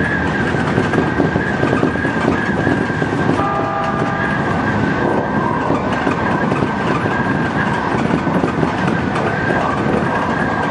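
Odakyu electric commuter train running at speed, heard from the front of the car: a steady rumble of wheels on rail with a constant high whine over it. A brief tone with several pitches sounds about three and a half seconds in.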